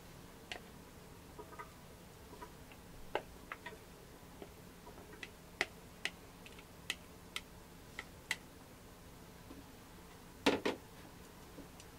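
Scattered sharp clicks and pops from marinated beef belly and sliced onions as they land and start to crackle on a hot iron griddle, a few a second in the middle. A louder knock comes about ten and a half seconds in.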